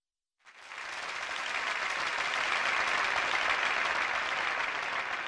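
Crowd applauding, fading in about half a second in and building gradually.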